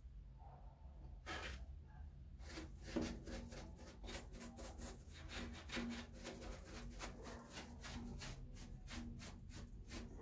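Bristle brush working a liquid finish into a carved wooden relief: a quick run of short, scratchy dabbing strokes, about three or four a second, starting about a second in. A steady low hum runs underneath.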